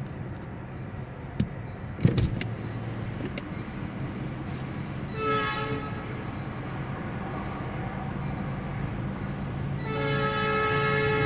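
Diesel locomotive horn sounding for a grade crossing: a short blast about five seconds in and a long, louder blast near the end, over a steady low rumble. A few sharp knocks, the loudest about two seconds in.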